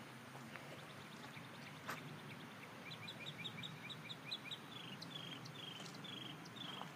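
A bird calling in the woods: a long run of short, high chirps repeated several times a second, starting a few seconds in and running on, faint against the open-air background.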